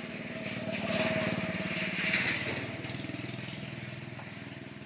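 A motor vehicle's engine running, louder about a second in and easing off over the last couple of seconds.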